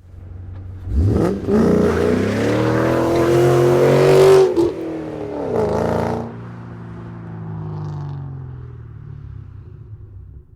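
A car engine revs hard from idle about a second in and accelerates away, its pitch climbing and then dropping at a gear change, with a second burst of throttle before it fades as the car pulls off.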